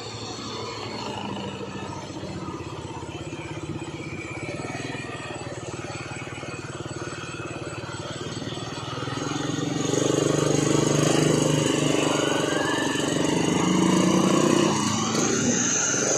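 Mitsubishi Fuso truck's diesel engine pulling a heavy load of sugarcane at low speed. The engine note grows clearly louder past the halfway point as the truck draws near, and its pitch shifts shortly before the end.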